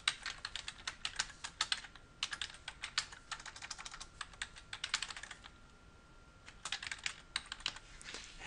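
Typing on a computer keyboard: runs of quick key clicks, with a pause of about a second a little past halfway before a last run of keystrokes.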